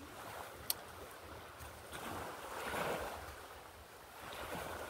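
Wind rushing and buffeting the microphone, a faint steady noise that swells about two to three seconds in, with one sharp click just under a second in.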